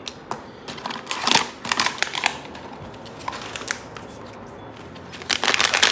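Blind-box packaging being handled and opened: scattered rustles and clicks, turning into continuous crinkling of plastic wrapping near the end.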